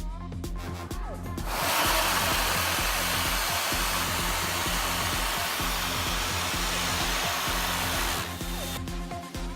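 Electric hand dryer blowing a strong jet of air onto a fidget spinner to spin it up. It switches on about a second and a half in, runs steadily, and cuts off shortly before the end.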